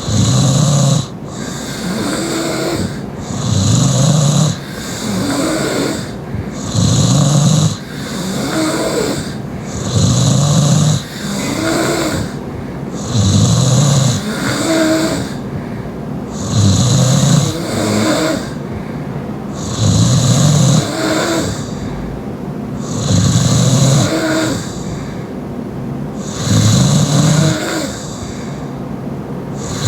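Loud, heavy mouth-breathing snoring from a sleeping young woman: a rasping snore about every three seconds, with softer breathing between.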